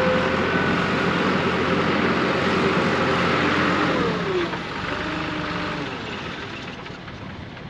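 Heavy vehicle engine running steadily, then dropping in pitch about four seconds in as it winds down, with the sound fading toward the end.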